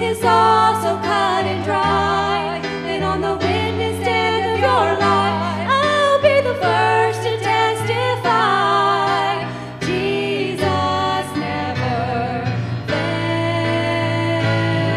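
A sacred song in a church service: a singing voice with a wide vibrato carries the melody over held instrumental chords and sustained bass notes that change every second or two.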